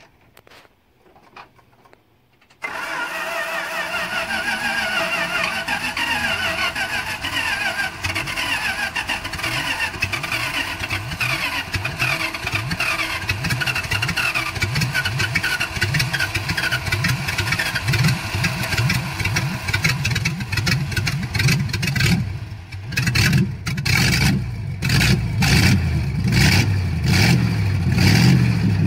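The 1951 Dodge Coronet's engine being cranked by its starter for a long stretch, then catching about six seconds before the end and running rough with uneven revving.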